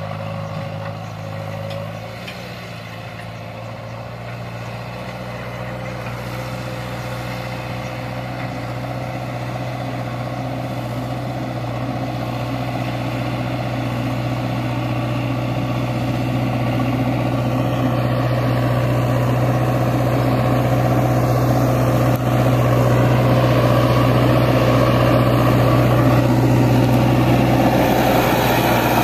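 Heavy diesel engine running steadily, growing gradually louder.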